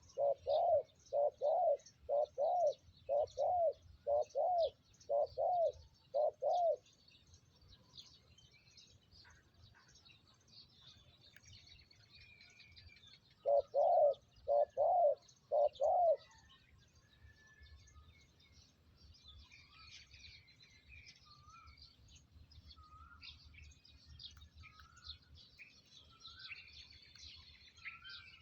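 Spotted dove cooing: a run of about eight evenly spaced low coos, then after a pause a shorter run of four. Small birds chirp faintly in the background.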